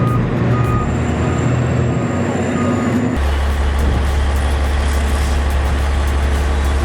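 Heavy construction machine running, its reversing alarm beeping about once every 0.7 seconds. About three seconds in the sound cuts abruptly to a steady, heavy low engine drone.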